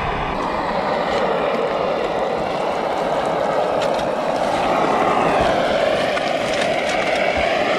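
Portable canister gas stove burner running with a steady rushing flame noise under a skillet of floured morels frying in butter, with a few faint pops.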